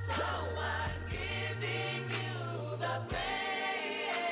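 Gospel music: a choir singing over a bass line, with a beat about once a second.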